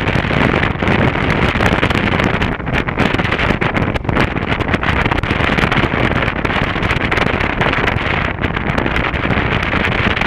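Steady wind rushing over the microphone of a camera mounted on a moving motorcycle, with the motorcycle's engine running underneath at road speed.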